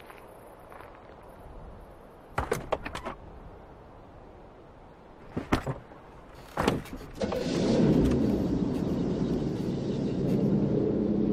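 Car door knocks and clunks, then a car engine starts about two-thirds of the way through and runs steadily with a low rumble.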